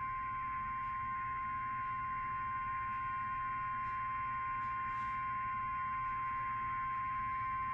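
Emergency Alert System attention signal: a single steady electronic tone announcing a National Weather Service warning.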